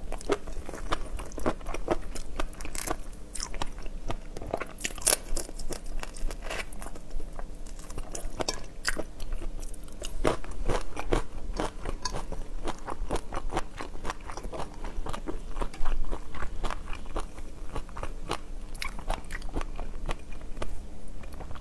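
Close-miked eating of raw shrimp: a person biting and chewing, with a dense run of crisp crunches and wet mouth clicks.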